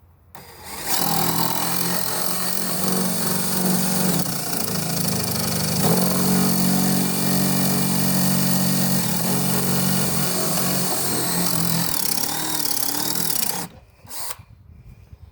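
DeWalt DC970 compact 18-volt cordless drill running continuously for about thirteen seconds while drilling, its motor hum dipping in pitch a couple of times under load, then stopping abruptly.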